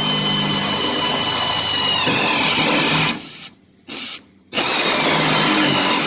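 Power drill turning a unibit step drill bit as it cuts a hole in the car's steel. The motor's pitch drops about two seconds in as the bit bites. It stops a little past three seconds, runs again in a short burst, pauses, then runs on.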